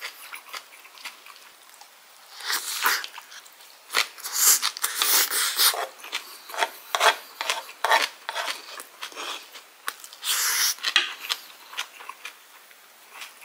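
Close-miked mukbang eating sounds: a wooden spoon scraping rice across a black grill pan in a run of irregular scraping strokes, with chewing of kimchi and rice in between.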